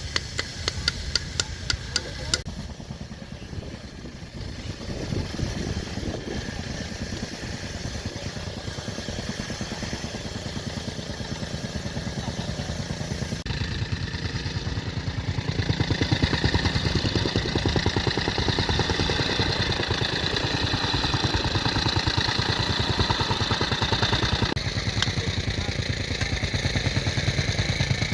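Heavy construction machine's diesel engine running steadily under work, with a run of sharp, regular clicks in the first two seconds and a high whine over the engine through the middle part.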